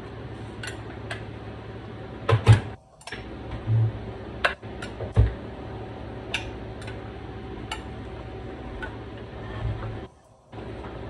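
Chef's knife slicing bell peppers on a wooden cutting board: irregular knocks of the blade against the board, a few of them louder thumps, over a steady low hum.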